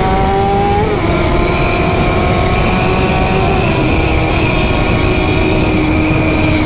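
Sport motorcycle engine pulling hard at speed. Its pitch climbs and then drops at two upshifts, about a second in and again past the halfway mark, before holding a steady high-revving note, with strong wind rush on the microphone.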